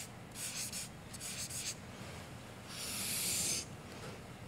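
Felt-tip marker writing on flipchart paper: two short scratchy strokes, then a longer, louder stroke about three seconds in.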